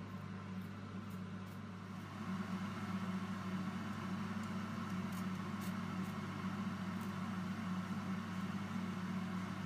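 Steady hum of a fan running, growing louder about two seconds in, with a few short hissing squirts from a trigger spray bottle spraying acetone onto an ABS 3D print.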